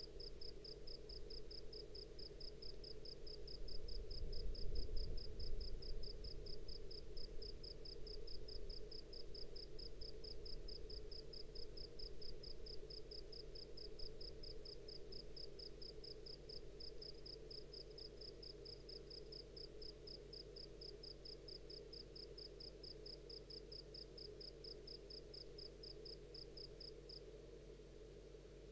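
A cricket chirping steadily, short high notes at one pitch about four a second, stopping near the end. Underneath are a steady low hum and a low rumble, loudest about five seconds in.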